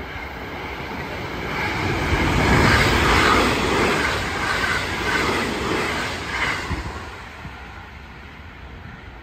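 JR West 281 series limited express electric train, six cars, running through the station without stopping. The noise of wheels on rail builds quickly, is loudest about two to four seconds in, and fades away after about seven seconds.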